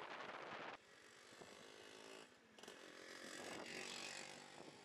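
Honda Click 125i scooter riding sound: a small engine running under a rush of air noise. The noise drops off suddenly less than a second in, and a hissing rush rises again in the middle.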